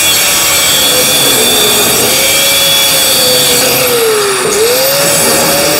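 DeWalt angle grinder running loud and grinding steel, throwing sparks. Its motor pitch dips under load about four and a half seconds in, then recovers.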